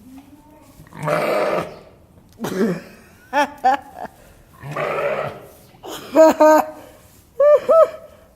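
A sheep gives two rough, burp-like calls, each just under a second long, about a second in and again about five seconds in. Short bursts of human laughter come in twos and threes between and after them.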